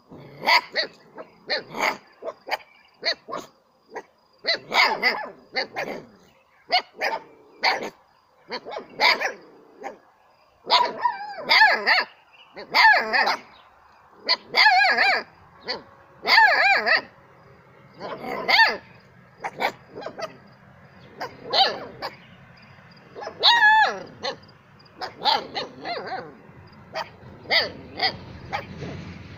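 Canaan dog puppies barking over and over in short, high yaps, about one or two a second with brief pauses.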